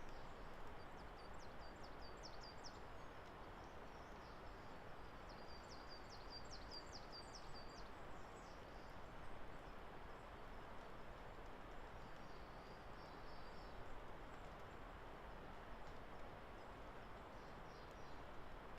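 Faint wild bird song: two quick runs of short, high, repeated notes about a second and five seconds in, then softer phrases later, over a steady background hiss of forest ambience.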